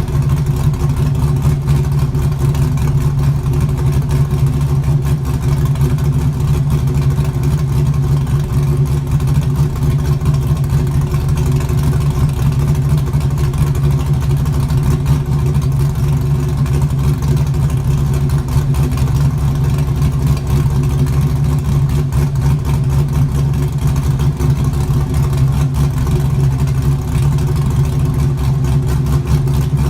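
LS1 V8 idling steadily, with no revving, through an exhaust that has no rear mufflers fitted.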